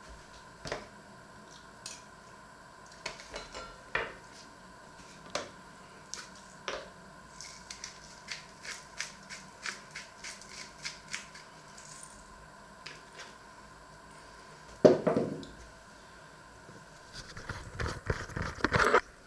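Hands handling food and utensils at a plate on a wooden table: a run of sharp clicks and taps, a single louder knock about fifteen seconds in, and a dense stretch of rustling and clatter near the end.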